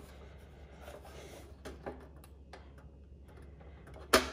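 Faint clicks and taps from hands handling a portable butane stove, with one sharp, louder click about four seconds in.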